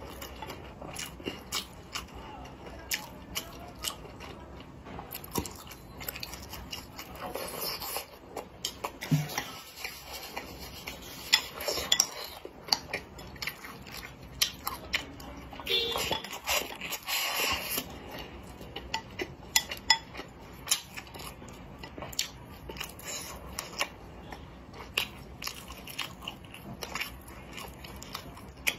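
Close-up eating sounds: a person chewing and biting mouthfuls of fried rice and braised meat, with frequent short clicks of wooden chopsticks against a ceramic bowl.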